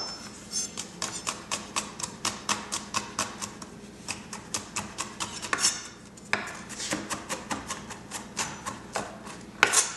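Chef's knife chopping and mincing garlic cloves on a wooden cutting board: quick, even knocks of the blade on the board, about four a second, slackening briefly midway before picking up again.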